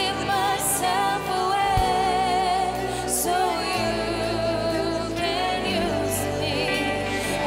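Live worship band playing a slow worship song, with electric guitar and violin over keyboard, and singing voices with a wavering vibrato on held notes.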